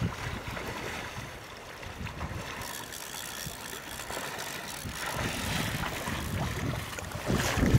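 Wind buffeting the camera microphone, with water splashing as a wader moves through the river; the splashing grows louder near the end.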